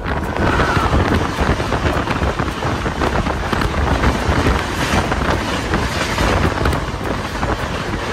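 Two trains passing at speed on adjacent tracks: steady rushing air and rail noise with a fast, dense clatter of steel wheels as the oncoming train's coaches sweep past close by. Wind buffets the microphone at the open carriage door.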